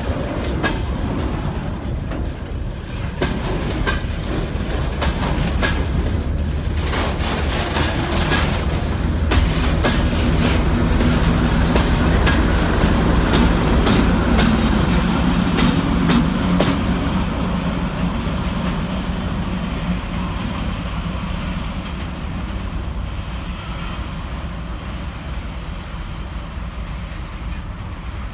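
Freight wagons rolling slowly past, their wheels clacking over rail joints and points, with the steady running of a ChME3 diesel shunting locomotive's six-cylinder engine. The clacks thin out about two-thirds of the way in, and the sound then eases off slightly.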